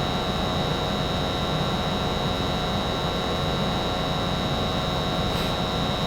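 American Standard 90% gas furnace running with its burners firing and blower on: a steady rush of air and hum, with a steady high-pitched whine over it.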